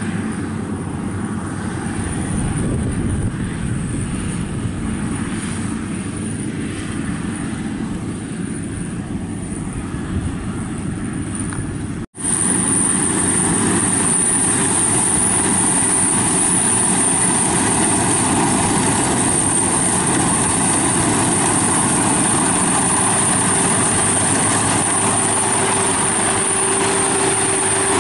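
Crawler rice combine harvester running while cutting and threshing rice: a steady engine and machinery drone. About twelve seconds in it drops out for an instant, then comes back louder, with a steady high whine over it.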